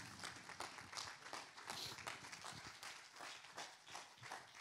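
Faint, irregular light taps and shuffles, a few each second: footsteps on a stage and papers being handled.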